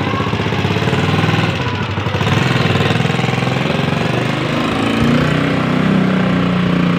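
Engine of a three-wheeled motorcycle loader rickshaw running, with a steady chug; its note shifts about four to five seconds in.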